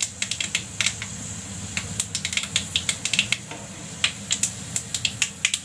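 Mustard seeds, cumin and chana and urad dal crackling in hot oil in a wok: many sharp, irregular pops over a steady sizzle, the dal being fried until golden for a tempering.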